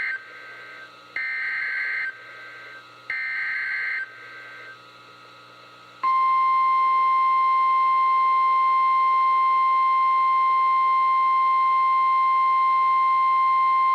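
NOAA Weather Radio Emergency Alert System signal: the end of the first and then two more of the harsh digital SAME header bursts, each about a second long and two seconds apart, followed after a short gap by the loud, steady 1050 Hz Warning Alarm Tone, which starts about six seconds in and holds without a break. This header-and-tone sequence marks the start of a new warning, here a Special Marine Warning.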